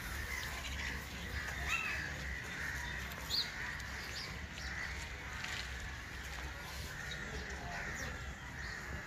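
Scattered short bird calls, a few chirps and caws every second or so, over a steady low rumble.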